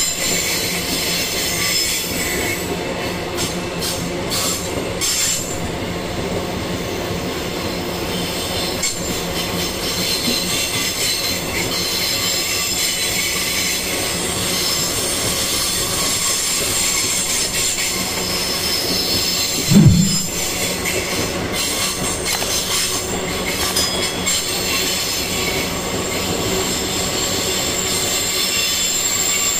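Loaded iron-ore wagons rolling past on a curve: steady wheel-on-rail noise with a thin, high wheel squeal running through it. One brief loud thump about two-thirds of the way through.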